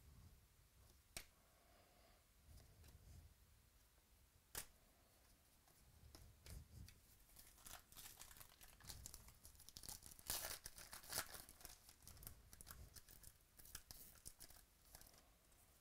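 Trading card pack wrapper being torn open and crinkled by hand, with cards rubbing and clicking against each other. Faint, with a few sharp clicks in the first half and a dense run of tearing and crinkling about ten to eleven seconds in.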